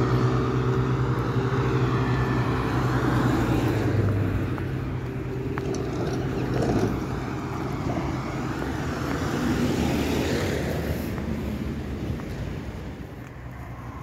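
Street traffic: motor vehicles passing on the road. A steady engine hum dominates the first few seconds, then gives way to road noise that fades and is quieter near the end.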